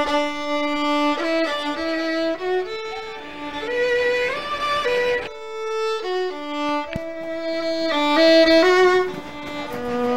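Background music: a solo fiddle playing a melody one note at a time, with a few slides between notes.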